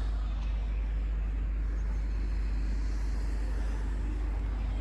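Steady road traffic noise, with a constant deep rumble underneath.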